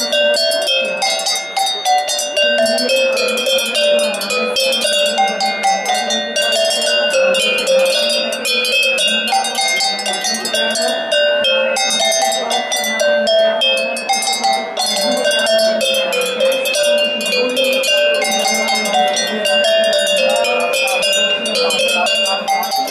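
A row of cowbells of different sizes hung from a wooden pole, struck rapidly with a stick to play a tune: quick, ringing metallic notes that change pitch without pause.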